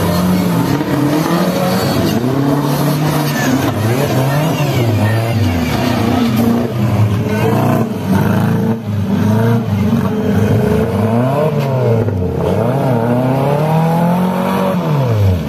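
Off-road buggy engines revving hard and repeatedly, the pitch rising and falling again and again under load as the buggies work through the mud. More than one engine is heard at once.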